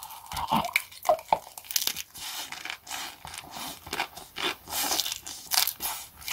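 A person chewing a stuffed mouthful of lettuce wrap close to the microphone: irregular crisp crunches of raw lettuce leaves.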